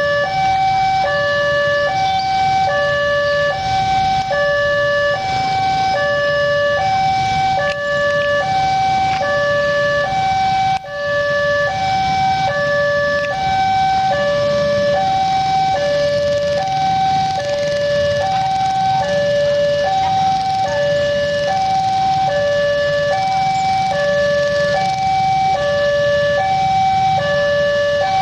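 Railway level-crossing warning alarm sounding: an electronic two-tone signal alternating evenly between a higher and a lower note, about one pair a second, the warning that a train is approaching. A low rumble of traffic runs underneath.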